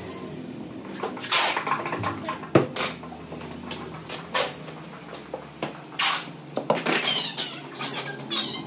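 Clear packing tape being pulled off the roll in several rasping strips and pressed onto cardboard boxes, with scattered clicks and cardboard handling noises.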